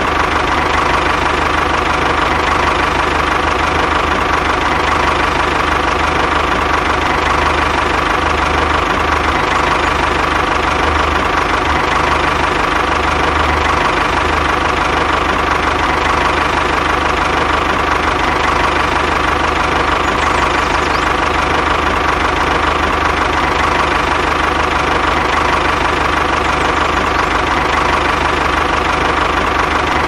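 Mini model tractor running steadily, an even, unchanging engine-like hum.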